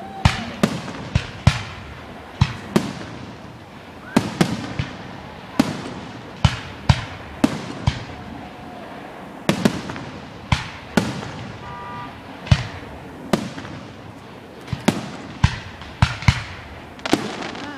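Aerial firework shells bursting in an irregular series of sharp bangs, some coming two or three in quick succession, each trailing off in a short echo.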